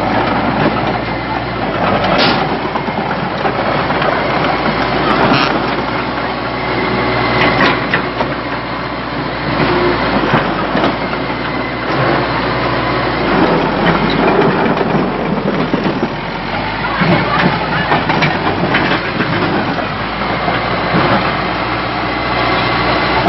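Bulldozer's diesel engine running steadily, with a few sharp knocks now and then.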